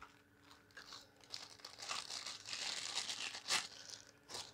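Plastic packaging crinkling and rustling as it is handled, with a few sharp clicks, heaviest in the middle.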